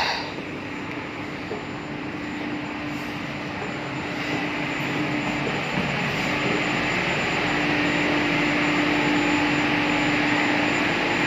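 Cargo tank heater's machinery running as it is restarted after an emergency stop test: a steady rushing noise with a constant hum that grows gradually louder.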